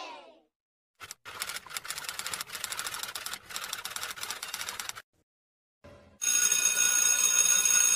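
Typing sound effect: rapid keyboard clicks for about four seconds. After a second's pause, a steady high ringing tone starts and holds for about two and a half seconds.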